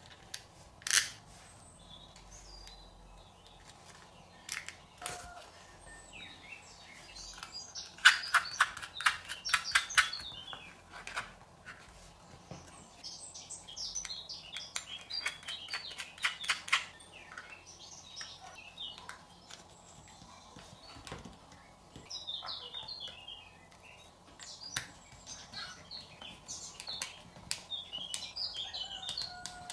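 Small metal screws, washers and nuts clicking and scraping as they are fitted into a red plastic lid by hand and then tightened with a screwdriver, with a quick run of clicks about a third of the way in and scattered short high squeaks later on.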